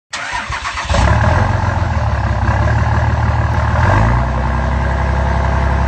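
A large engine running loud and steady, after a short stuttering start with quick regular strokes in the first second.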